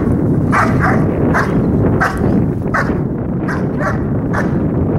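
German Shepherd barking repeatedly at a decoy during protection training: a run of about eight sharp barks, roughly one every half second to second.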